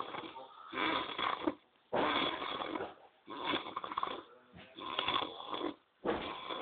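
A man asleep and snoring: five snoring breaths in a row, each about a second long, with short pauses between them.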